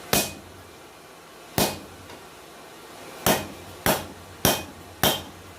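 Six blows of a soft-face hammer on steel, each a sharp knock with a brief metallic ring. The first three come a second and a half apart, the last three quicker, about every half second.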